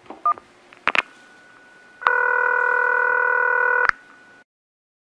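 Phone call being placed: two short keypad beeps, a sharp click about a second in, then one ring of the outgoing call lasting about two seconds.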